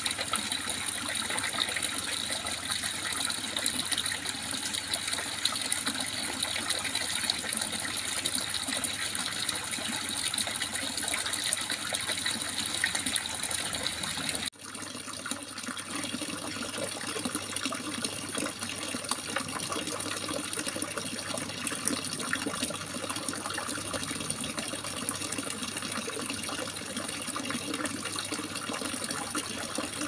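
Babbling, trickling water running steadily, with a splice about halfway through where the sound drops out for an instant and resumes with a slightly different tone.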